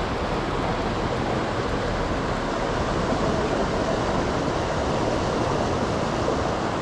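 Steady rush of fast-flowing river water, white water churning past the bank.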